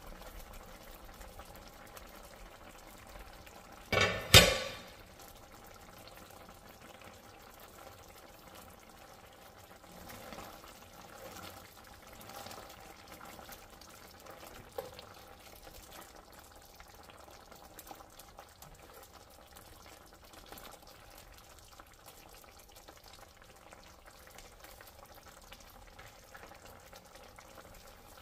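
Chicken curry simmering in a skillet, with a spatula stirring through it now and then. A sharp, loud clatter about four seconds in is the loudest sound.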